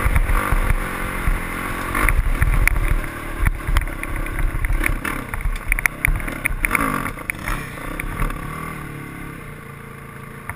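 Dirt bike engine running and revving up and down over a rough track, with knocks and clatter from the bumps. The engine note drops away over the last few seconds as the bike slows toward a stop.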